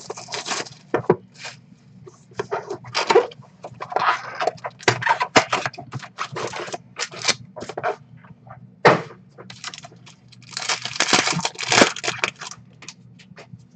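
Foil trading-card pack wrappers crinkling and tearing as a box of 2019 Panini Prestige football packs is opened and a pack is ripped open: a run of sharp crackles and rustles in bursts, loudest near the end.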